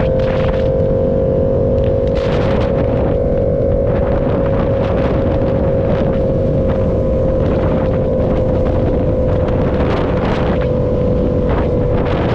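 Motorcycle engine running at a steady cruising speed, its tone holding almost level and sagging slightly, with gusts of wind buffeting the microphone.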